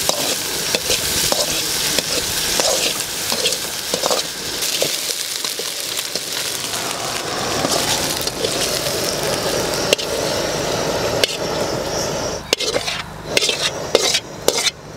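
Lobster meat sizzling as it fries in oil in an aluminium pan, stirred with a metal spoon that clinks and scrapes against the pan. Near the end the steady sizzle breaks off into separate scrapes and knocks as the pieces are scraped out of the pan.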